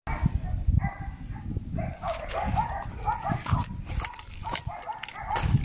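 Dogs barking and yelping repeatedly, with short calls bunched in the middle of the stretch, over low thumps and rumble.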